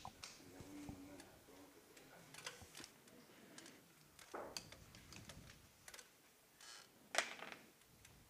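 Near silence in a quiet billiard hall, broken by a few faint, scattered clicks and knocks, the clearest about seven seconds in.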